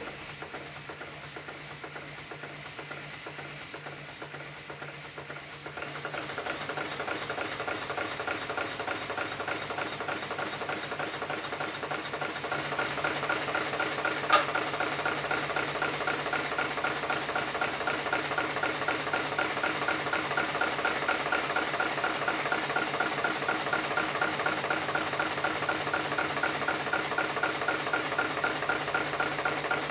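Taylor Twin steam boat engine, a twin-cylinder engine, running on steam with a rapid, even knocking beat and a hiss. It gets louder at about six seconds and again near thirteen, with a sharp click at about fourteen seconds. The knocking comes from bearings not yet adjusted, and steam leaks from the loose piston rod glands.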